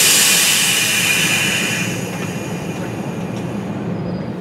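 A sudden loud hiss of air from an NJ Transit Multilevel passenger train at the platform, fading over two or three seconds, over the train's steady low hum.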